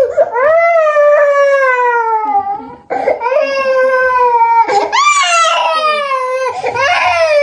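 Toddler crying hard in long, drawn-out wails, each sliding down in pitch. A quick breath comes about three seconds in, and a sharper, higher cry breaks out about five seconds in.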